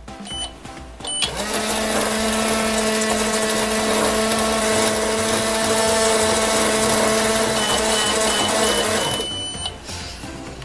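Microwave running a cycle: two short beeps as it is started, then a steady hum for about eight seconds, ending with a run of short beeps and a longer beep as it finishes.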